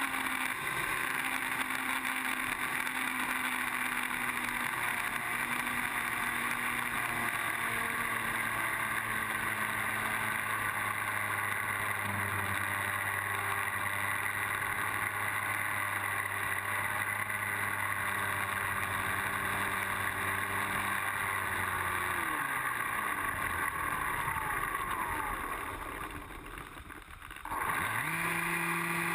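Electric brushless outrunner motor (Exceed RC Rocket 3015, 1200kv) spinning a 9x4.5 APC propeller on an RC plane, heard from the plane itself: a steady motor hum that steps in pitch as the throttle changes. Near the end the pitch falls away and the motor goes quiet for a moment, then spins back up quickly.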